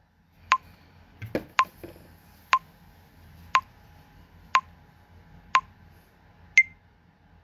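Phone's TikTok recording countdown timer beeping once a second: short pips, the last two higher in pitch, with a few soft knocks about a second in.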